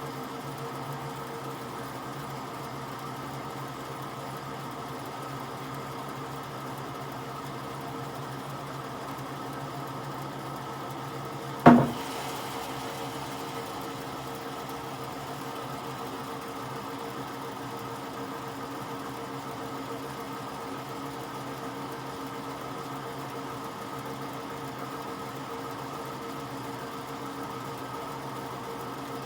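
A machine's motor running at a steady speed with an even hum, and one sharp knock about twelve seconds in.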